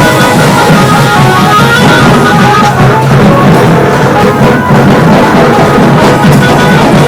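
Tasa drum band playing very loud, continuous drumming with a steady melody line over it.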